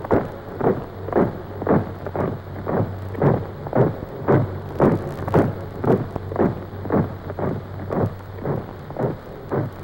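Boots of a column of troops marching in step, a heavy tread at about two steps a second, over a low steady hum.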